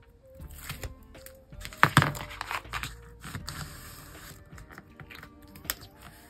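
Paper and card being handled: rustling and tapping, with a loud crinkle about two seconds in and a sharp tap near the end, over quiet background music.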